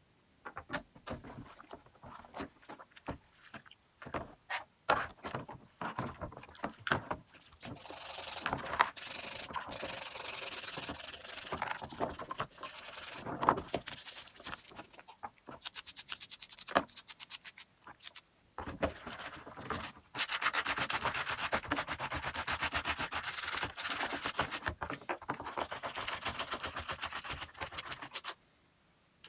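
Small parts clicking and knocking as they are handled, then long spells of steady rubbing and scraping, like sanding or scrubbing a part clean, with a few short pauses.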